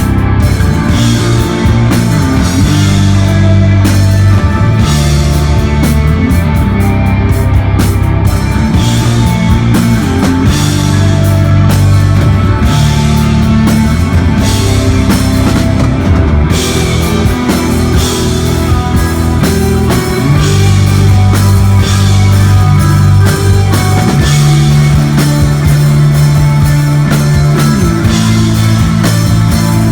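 Live instrumental desert rock from an electric guitar, bass and drum kit, played loud: the bass holds long low notes that change every couple of seconds, under guitar and steady cymbal crashes.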